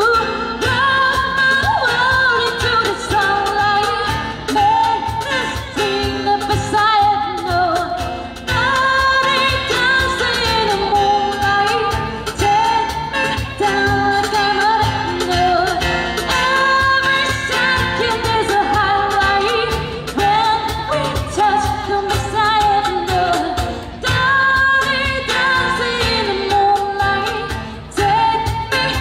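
A female singer singing a slow pop song live with accompaniment, long held notes over a steady beat.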